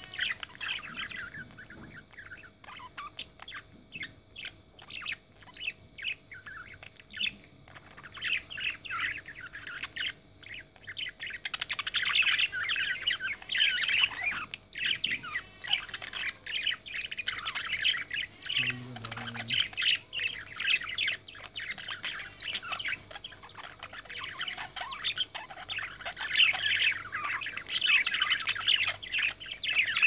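Budgerigars chattering: a continuous stream of quick warbling chirps and squawks, getting busier and louder about a third of the way in.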